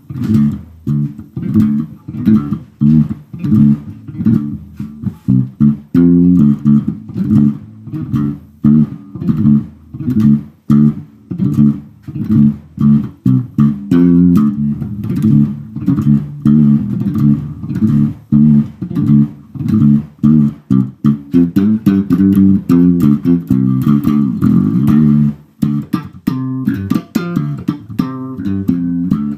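Warwick electric bass played solo in a funk style: a busy run of short, punchy plucked notes with clicky attacks. A few seconds before the end one note slides in pitch, followed by a run of quicker notes.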